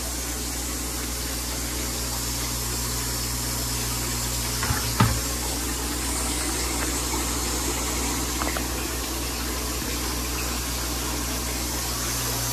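Steady hum of aquarium pumps with moving water, and two short knocks about five seconds in.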